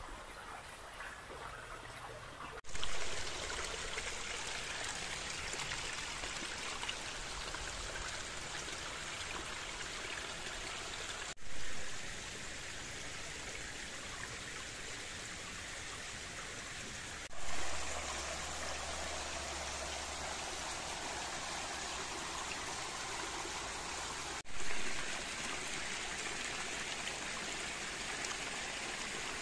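Gorge stream rushing over rocks and small cascades: a steady rush of water. It breaks off and resumes abruptly four times, swelling louder for a moment after each break.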